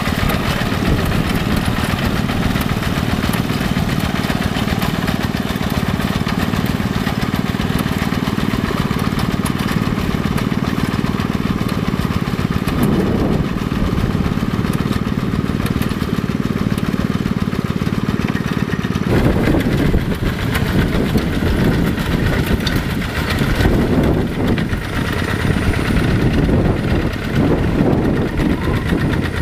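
Yanmar single-cylinder diesel engine of a walking hand tractor running steadily under load while its cage wheels and plow work a flooded rice paddy. The sound changes abruptly about two-thirds of the way in and becomes more uneven.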